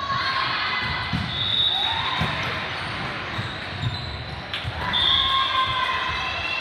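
Volleyball rally on a hardwood gym floor, echoing in a large hall: thuds of the ball and players' feet, and high squeals that are likely sneakers on the court, the longest around a second and about five seconds in. Voices are heard throughout.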